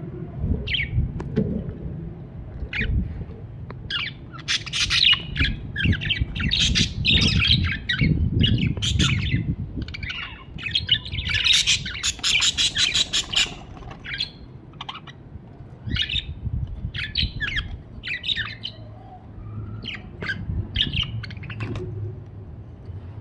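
Budgerigar chirping and chattering in short, quick calls. The calls come thickest through the middle, with a fast run of chatter about twelve seconds in, over a low background rumble.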